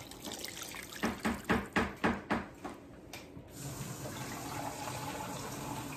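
Water poured from a glass measuring cup into a stainless Instant Pot, splashing in a quick run of about six pulses. From about three and a half seconds in, a kitchen tap runs steadily.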